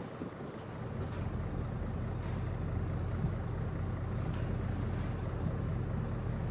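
Low, steady rumble of a ship's diesel engines in the harbour, growing louder about a second in and then holding, with a few faint, short high sounds above it.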